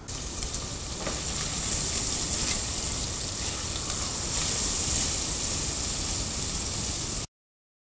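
Diced bacon sizzling in hot olive oil in an aluminium pot, a steady frying hiss, with light scraping as a plastic spatula stirs it. The sizzle cuts off suddenly near the end.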